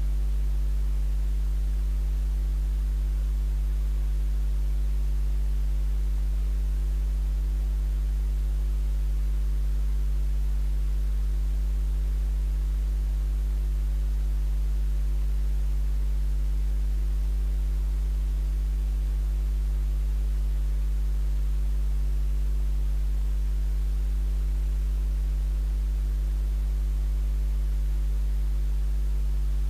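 Steady electrical mains hum: a low, unchanging buzz with a row of fainter overtones above it.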